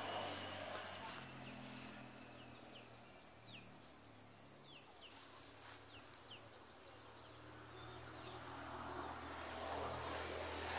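Tropical forest ambience: a bird calling in a run of short falling whistles, then a quick burst of rising chirps, over a steady high insect buzz and a faint low hum.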